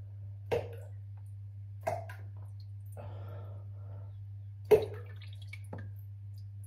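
Drops falling into the water of a toilet bowl: four separate plops, the third, just under five seconds in, much the loudest. A steady low hum runs underneath.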